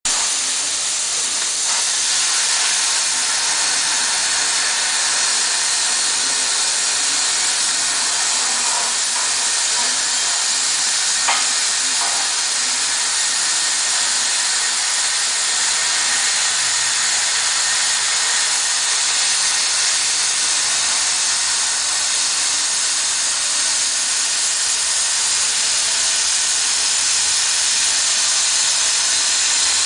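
Cutting torch slicing through three-quarter-inch steel plate: a steady, continuous hiss of the cutting jet, with one brief click about eleven seconds in.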